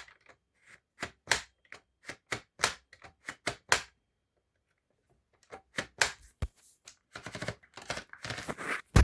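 Remington Portable typewriter mechanism clicking: sharp single mechanical clicks about twice a second, a short pause, then a quicker run of clicks near the end, typical of the platen's line-space ratchet being stepped.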